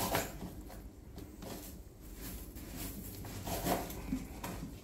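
Aquarium gravel shifted by hand inside a glass tank: scattered soft clicks and rattles, a little stronger near the end.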